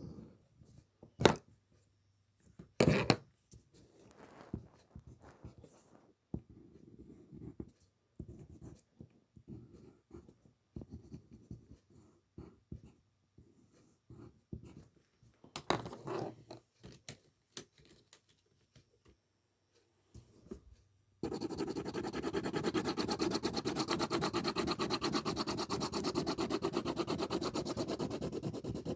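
Small clicks, knocks and scrapes from objects being handled, with two sharper clicks in the first few seconds. About 21 seconds in, a steady, dense scratching noise starts and keeps going.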